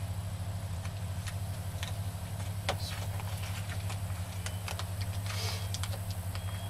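Blue painter's tape being handled and wrapped around a rifle's muzzle device: scattered small clicks and a short rasp of tape pulled off the roll about five and a half seconds in, over a steady low hum.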